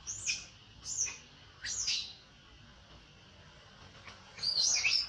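Baby macaque crying in high, shrill squeals that fall in pitch: three short cries in the first two seconds, then a longer run of cries near the end.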